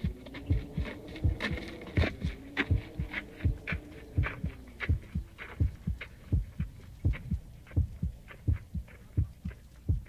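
Human heartbeat recording: a steady run of deep lub-dub double beats, a little faster than one a second. A faint wavering tone underneath fades out about halfway through.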